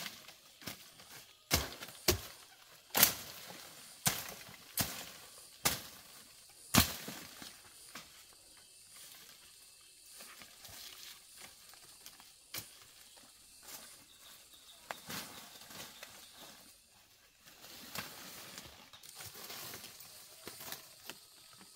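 A hand tool chopping into soil and roots while digging up tubers: sharp knocks about once a second for the first seven seconds, then quieter scraping and rustling.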